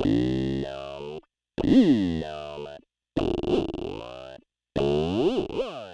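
Analog synthesizer notes passed through a voltage-controlled vowel formant filter: four separate notes of about a second each with short gaps between them, each one's tone sweeping so that it sounds like a changing vowel.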